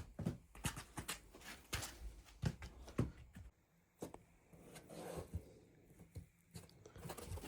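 Packaging being opened and handled by hand: scattered faint clicks, taps and rustles, with short pauses between them.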